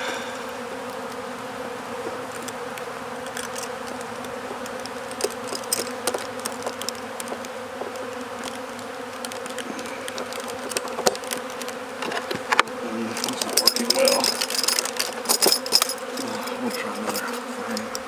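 Honey bees buzzing around an open hive, a steady hum. In the second half, a metal hive tool scrapes and clicks against the wooden frames.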